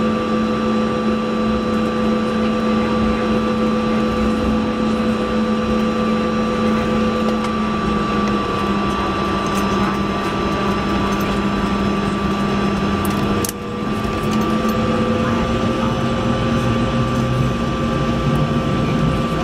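Cabin noise of a Bombardier CRJ-200 taxiing onto the runway: the rear-mounted General Electric CF34 turbofans at low taxi power give a steady whine with several held tones over a rushing hum, the tones shifting slightly in pitch. There is a brief dip in the sound about thirteen and a half seconds in.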